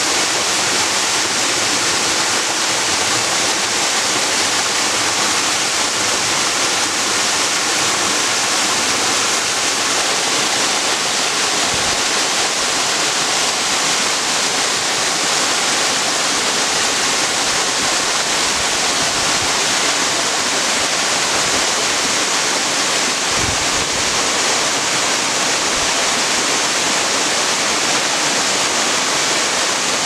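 Mountain waterfall cascading over rock ledges and splashing into a shallow pool: a steady, even rush of falling water.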